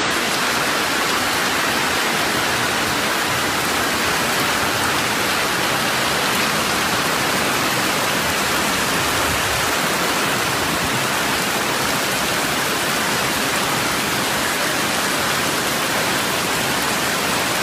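A torrent of muddy floodwater rushing through a street: a loud, steady rush of water.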